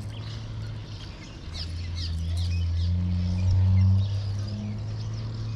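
Small birds giving short, quick, falling chirps, several in a row about one and a half to three seconds in, over a steady low hum.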